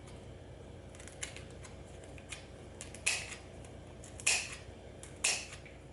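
Kitchen scissors snipping kaffir lime leaves: a series of short, crisp snips, a few faint ones and then three louder cuts about a second apart.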